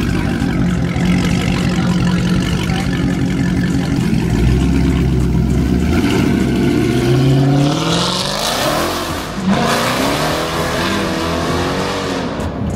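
A car engine revving. It holds a steady drone at first, then climbs in pitch in the middle, drops off sharply and is revved up and down again in the last few seconds.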